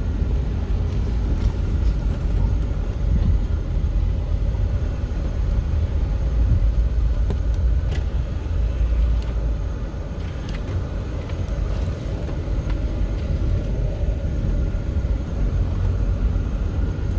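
Steady low rumble of a moving road vehicle's engine and tyres, with a few faint clicks.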